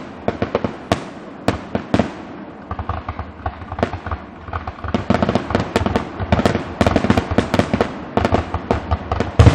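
Fireworks display: a rapid string of sharp bangs and crackles from aerial shells bursting, coming thicker and louder in the second half.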